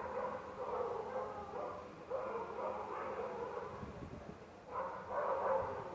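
A domestic animal calling in repeated stretches, each a second or two long.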